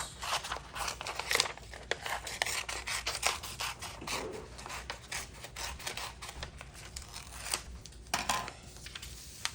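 Scissors cutting paper: a run of irregular snips with paper rustling, thinning out near the end.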